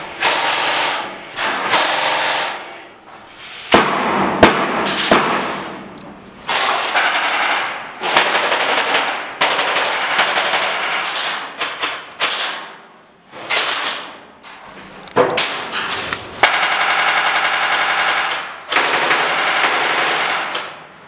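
Airsoft rifles firing on full auto: loud rapid clatter in a dozen or so bursts with short gaps between, the longest lasting about two seconds.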